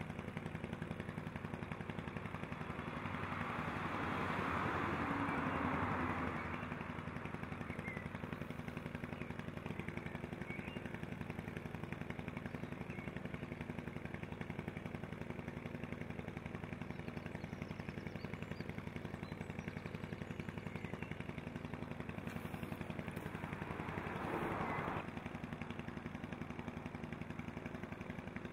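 A narrowboat's diesel engine idling steadily with an even, rapid chug. A rushing hiss swells over it a few seconds in and again briefly near the end.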